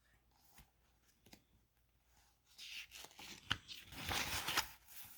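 Paper rustling with a couple of sharp crinkles, a picture book's page being turned, starting about halfway through.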